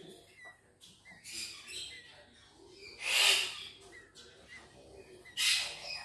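Cockatiel chicks giving raspy, hiss-like calls in three loud bursts, the loudest about three seconds in, with faint short chirps between them.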